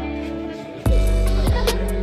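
Background music with a steady beat of deep bass drum hits.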